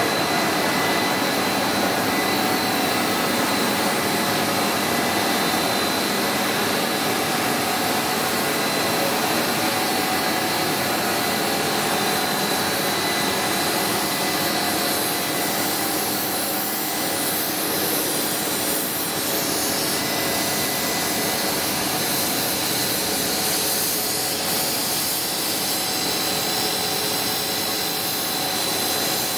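Cast film extrusion line running: a steady mechanical whir with a thin, high, constant whine over it.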